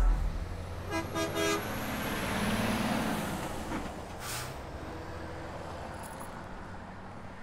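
A car horn gives a few quick short toots about a second in, then a vehicle's noise swells and fades, with a single sharp knock just past the middle.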